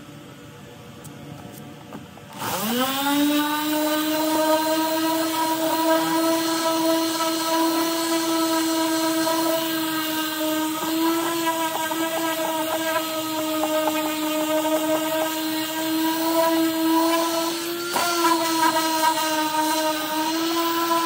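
Electric random orbital sander switched on about two seconds in: its whine rises quickly as the motor spins up, then runs steadily as it sands a painted wooden cabinet door, with a brief dip near the end.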